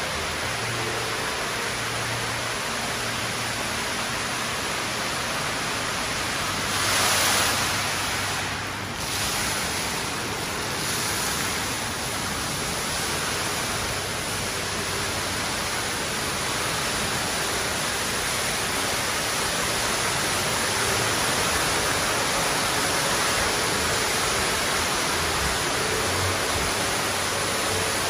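Steady rushing hiss of an indoor water feature, a column of water falling from the centre of a skylight dome into the atrium below. It swells briefly about seven seconds in and grows a little louder near the end.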